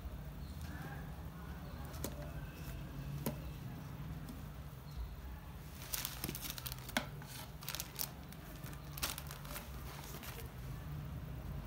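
Handling noise: clear plastic wrapping crinkling, with small clicks as rubber gas tubes and a hand torch are moved about. The rustling comes in a burst of sharp crackles about halfway through, over a low steady hum.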